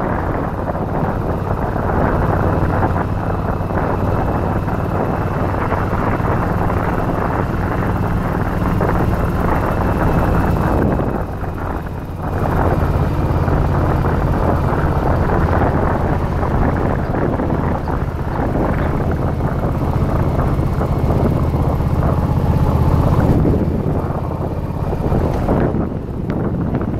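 Yamaha Virago XV1100's air-cooled V-twin engine running steadily while riding, under heavy wind rush on the microphone. The engine briefly drops away about eleven seconds in, then picks up again.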